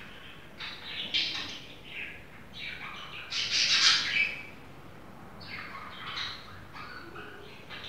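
Birds chirping and singing: irregular bursts of high chirps and short warbling glides, loudest about three to four seconds in.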